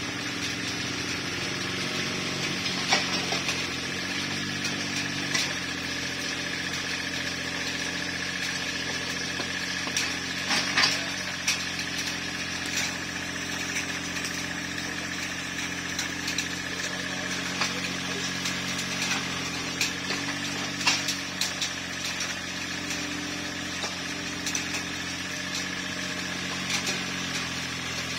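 Mini excavator's diesel engine running, its pitch rising and falling as the hydraulics take load, with a few sharp knocks now and then.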